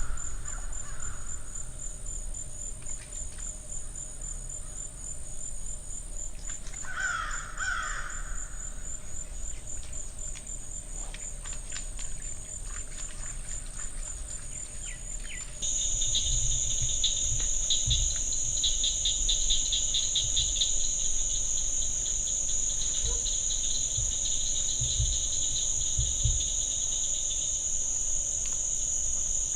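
Crickets and other night insects trilling steadily in a high, pulsing chorus. A single bird call sounds about seven seconds in. About halfway through, the insect chorus suddenly becomes louder and fuller.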